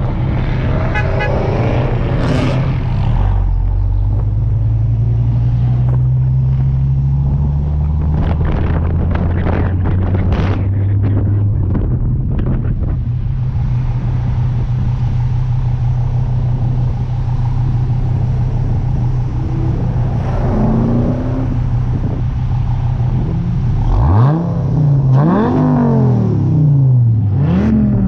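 The engine of the car being driven runs low and steady at cruising speed, with wind noise over it. Near the end it revs up and drops back three times in a row as the car accelerates through the gears.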